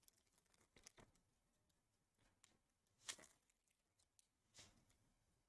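Near silence, with a few faint, short rustles and taps of trading cards being handled, the clearest about three seconds in.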